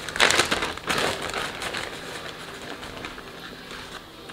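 Plastic zip-top bag of breadcrumbs crinkling as a hand works inside it, with two louder rustles in the first second or so, then softer crinkling.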